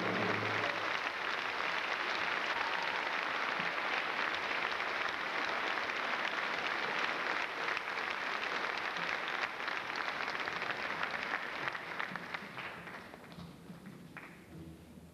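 Theatre audience applauding, starting as the final choral and orchestral chord dies away. The clapping fades out over the last few seconds.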